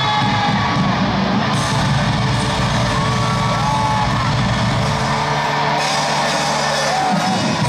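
Live pop concert music played loud over a stadium sound system, with the crowd whooping and yelling over it.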